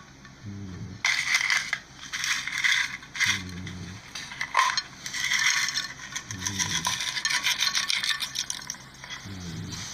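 Slime being squeezed and worked by hand, giving bursts of fine crackling and popping clicks.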